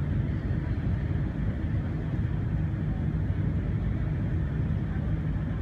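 Steady low rumble of a small car ferry's engine running as it crosses the river.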